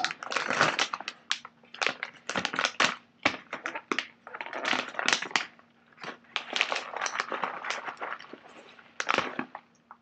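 Plastic snack pouch of granola crinkling and rustling in irregular bursts as it is opened and handled.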